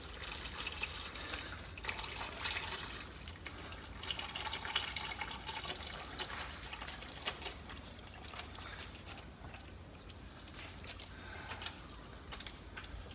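Engine oil draining from a Ford Explorer's oil pan drain hole, a thin stream trickling steadily into a drain pan with many small drips and splashes.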